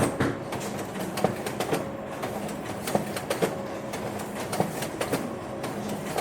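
Office printer running: a mechanical hum with short tones that come and go, broken by sharp clicks about twice a second.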